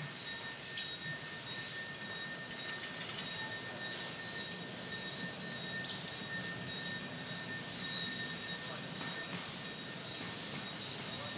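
Train on a 12-inch-gauge ridable railroad moving slowly through the wye, its wheels squealing in steady high tones over a hiss that pulses about three times a second.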